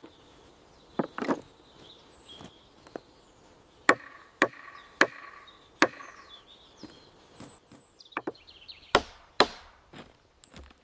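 Irregular strikes of a tool chopping into wood, about nine sharp blows with short pauses between them.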